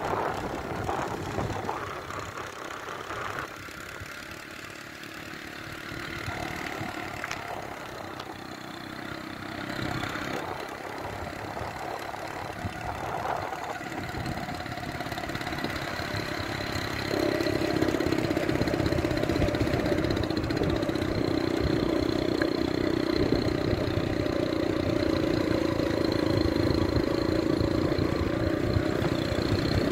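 Motorcycle engine running as it is ridden, fairly low at first, then stepping up clearly louder a little past halfway and running steadily after that.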